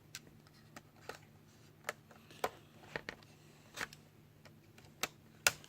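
Scattered small clicks and taps as a loose bezel is handled and pulled off an LCD touchscreen, irregularly spaced, with the sharpest click near the end.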